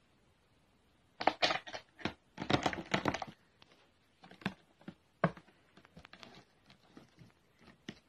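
Scratching and rustling as a cat rolls and paws at the carpet and the sofa's fabric: a dense run of rough scrapes between about one and three seconds in, then scattered single scrapes and clicks.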